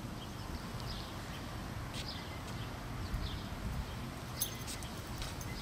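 Outdoor ambience: small birds chirping faintly and intermittently over a steady low rumble, with a few light clicks near the end.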